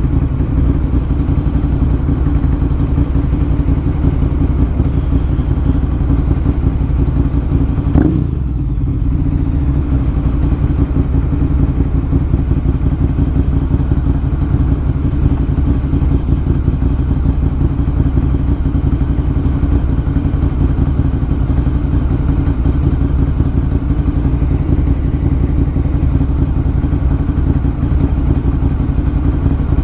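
Ducati Monster 1100 EVO's air-cooled L-twin running through a Termignoni exhaust, ridden at a steady pace. About eight seconds in there is one sharp click, and the engine briefly eases off.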